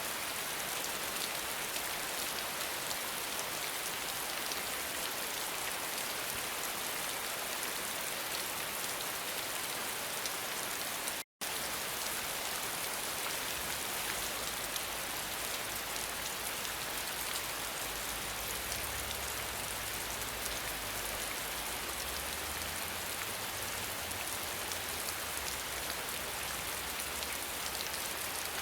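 Steady rain falling, a dense, even patter of drops. It cuts out for an instant about eleven seconds in, and a faint low rumble joins it later on.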